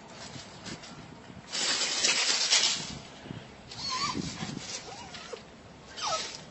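A pet animal's noises: a loud rush of noise lasting about a second and a half, then shorter noisy bursts with brief cries, and a short falling cry near the end.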